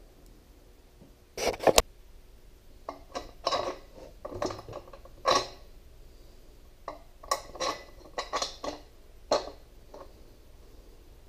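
Metal tools and hardware clinking and knocking together as they are handled, in irregular clusters of sharp clicks with a little ringing.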